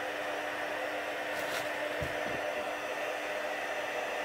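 Embossing heat tool blowing steadily, a fan hiss with a constant low motor hum, as it heats white embossing powder on a stamped card strip.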